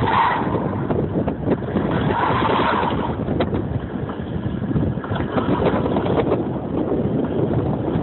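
Wind buffeting the microphone, a rough, uneven rumble, with two brief higher-pitched sounds near the start and about two seconds in.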